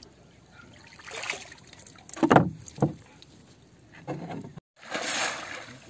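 Sea water lapping and splashing around a wooden outrigger boat, with two dull thumps a little over two seconds in and a burst of splashing near the end.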